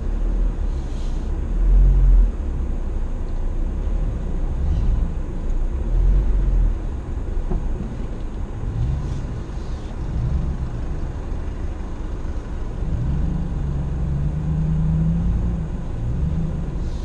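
Chevrolet ZR2 pickup's engine running as the truck drives over a rough dirt trail, heard inside the cab as a low rumble whose pitch rises and falls. Heavy low thumps come about two seconds in and again around six seconds in.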